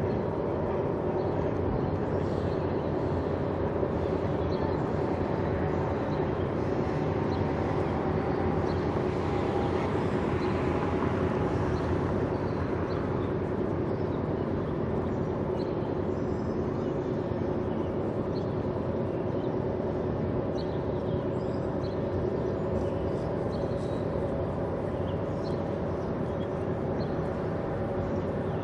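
Steady mechanical hum with several unchanging tones, over a constant outdoor background noise.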